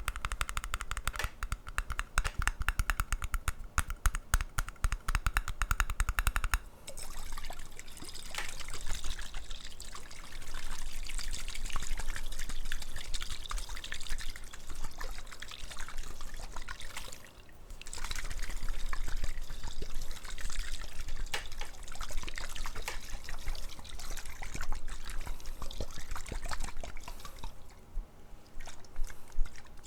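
Rapid tapping for the first six seconds or so, then water pouring into a glass in long pours, with a short break about halfway through and another near the end.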